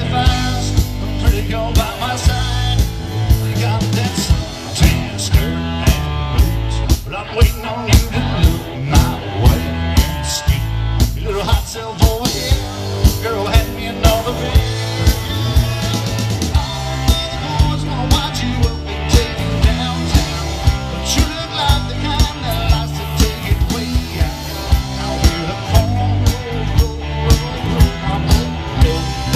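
Live rock band playing with electric guitars and a drum kit keeping a steady beat.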